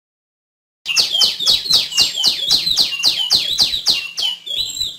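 Female tiểu my bird calling: a fast run of sharp high notes, about four a second, each sweeping quickly down in pitch. The run starts abruptly about a second in.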